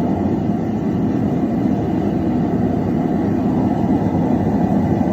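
Propane forge burner running, a steady low rushing noise, as the steel billet inside heats toward forge-welding temperature.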